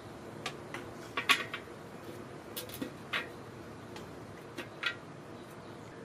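A few scattered light clicks and taps of small handle parts and hardware handled against a steel kettle-grill lid, over a faint steady hiss.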